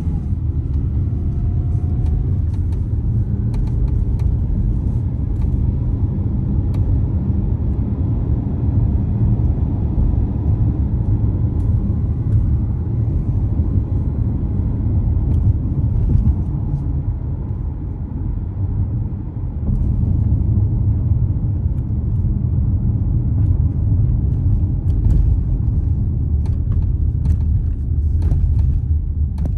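Steady low rumble of a 2021 Mazda CX-5 on the move, with scattered light ticks throughout that are likely the noise the owner finds annoying.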